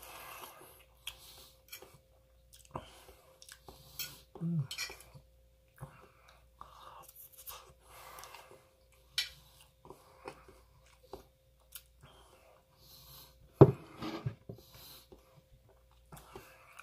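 Close-up chewing and mouth sounds of someone eating rice and stuffed tofu, with a metal fork clicking against a ceramic plate. A sharp clink about three-quarters of the way through is the loudest sound.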